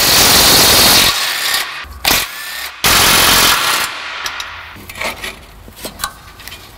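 DeWalt cordless impact wrench hammering off the rusted exhaust flange bolts at the catalytic converter: a loud rattling burst at the start, a short one about two seconds in, and another near three seconds in. Quieter knocks and scraping of the exhaust pipe being handled follow.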